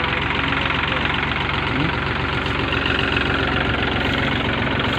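Rice combine harvester's engine running steadily at a constant speed, with a dense mechanical clatter.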